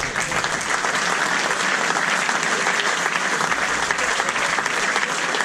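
Crowd of spectators applauding, a dense, steady clapping.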